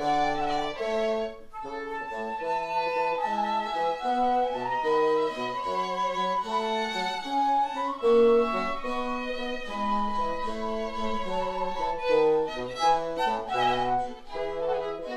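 Baroque chamber ensemble of flute, violin, bassoon and harpsichord playing a trio sonata. The flute and violin weave two melodic lines over a stepping bass line from the bassoon and harpsichord.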